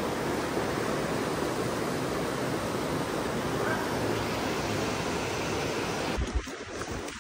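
Steady rushing of a river flowing past, an even noise with no pitch. About six seconds in it cuts off abruptly, leaving quieter sound with a few low thumps.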